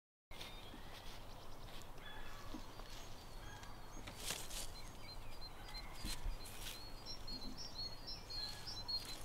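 Outdoor ambience: a steady low rumble of background noise with a few light knocks or rustles, and small birds chirping in a quick run of high notes over the last few seconds.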